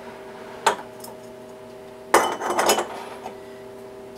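Metal canning funnel and glass canning jar clinking as the funnel is set in place: one light knock about a second in, then a short burst of clattering past the middle, over a faint steady hum.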